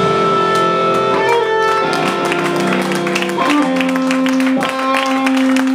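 Live garage rock band: electric guitars and bass hold long ringing notes over drum and cymbal hits as the song ends. The held notes drop to a lower one about three and a half seconds in.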